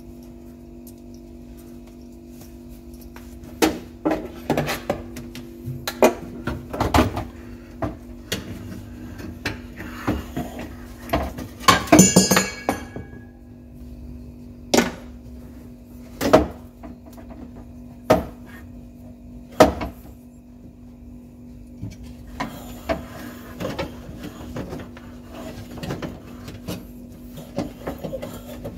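Metal parts knocking and clinking as they are handled, in irregular single strikes, with one longer ringing clink about twelve seconds in. A steady low hum runs underneath.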